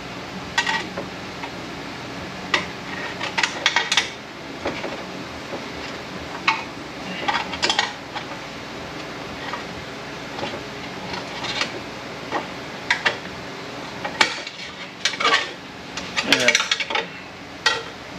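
Irregular metallic clinks and short scrapes of steel picks and a snap ring against the inside of a 6HP26 automatic transmission case, as a beveled snap ring is pried out of its groove. The clinks come in clusters, busiest around 4 s, 8 s and 16 s in.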